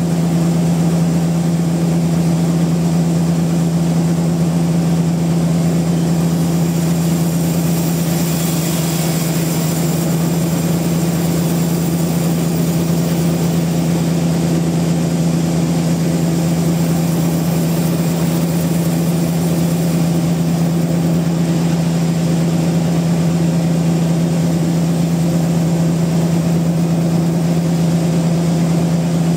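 Sawmill machinery running with a steady, loud hum.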